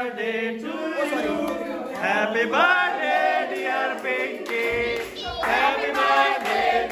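A group of people singing and shouting together, many voices overlapping.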